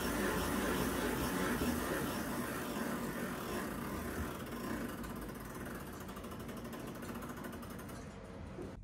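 Weight-driven longcase clock being wound: the winding ratchet clicks rapidly into a whirr as the weight is drawn up. The sound grows steadily quieter toward the end, where the winding slows as the pulley nears the seat board.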